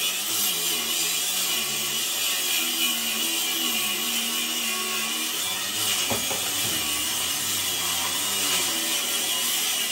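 Handheld power grinder cutting through metal stock to cut out a knife guard. It runs steadily throughout, its whine wavering up and down in pitch as it is worked into the cut.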